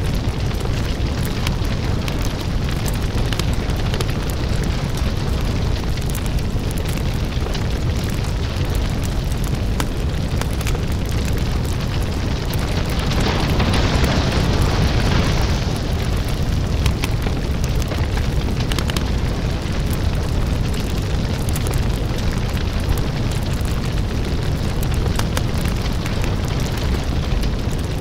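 A large house fire roaring, with a steady deep rumble and constant crackling and popping. About halfway through it swells louder and hissier for two or three seconds.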